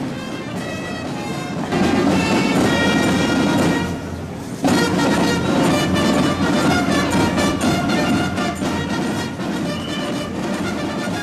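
Marching fanfare band playing, brass and drums. The music changes abruptly about two seconds in and again about four and a half seconds in.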